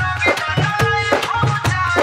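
Dance music with a fast, steady drum beat, about four beats a second, over a deep bass pulse.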